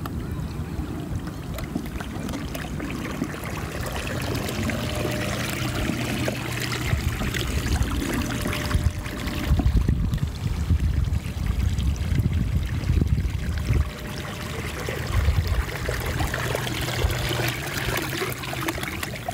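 Water trickling and lapping around a kayak's hull, with a low, uneven rumble that grows louder in the middle.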